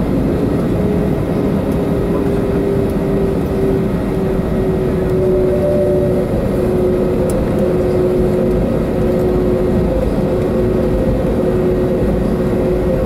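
Airbus A320neo's turbofan engines at taxi power, heard inside the passenger cabin as a steady drone with a clear humming tone, and a second, higher tone joining about halfway through.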